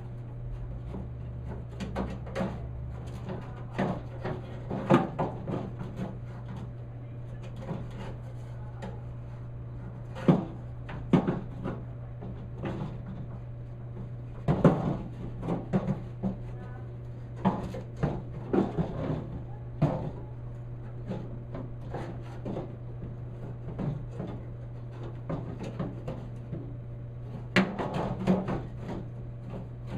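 Metal clunks, knocks and rattles at irregular intervals as a window regulator is worked into a truck door shell, over a steady low hum.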